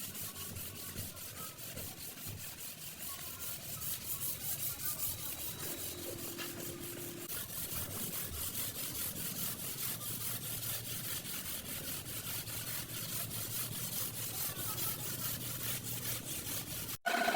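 Rapid, even hand-scraping strokes on sheet steel, like sanding, filing or wire-brushing rust from a car's floor panel, and it cuts off suddenly near the end.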